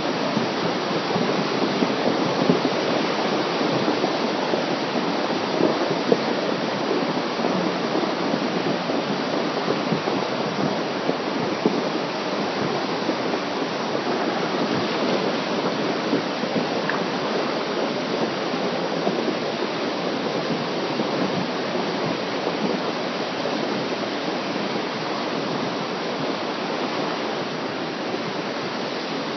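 Flooded Middlebury River rushing in a steady, loud wash of water noise.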